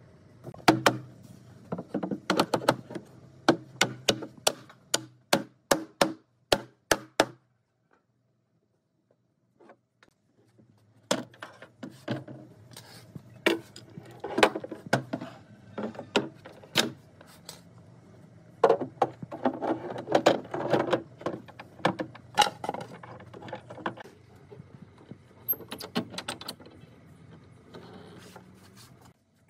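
Wood and tools being worked: a run of sharp knocks and clatter, a few seconds of silence about a quarter of the way in, then more knocks and handling noise.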